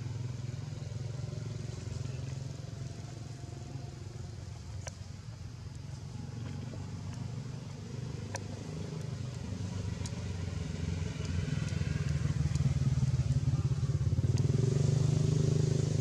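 A small engine running steadily in the background, growing louder over the last few seconds, with a few faint scattered ticks.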